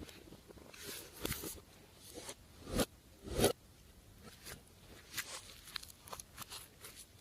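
Hands working glossy slime, making a run of short, irregular crackles and sticky squelches, the loudest two close together about three seconds in.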